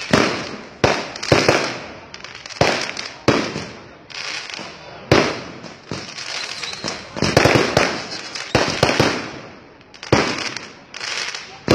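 Aerial fireworks bursting overhead: about a dozen sharp bangs at irregular intervals, each trailing off before the next.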